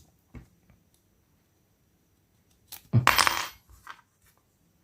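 Metal parts of a Leatherman Surge multitool being handled: a small click about half a second in, then a short, loud metallic clatter about three seconds in.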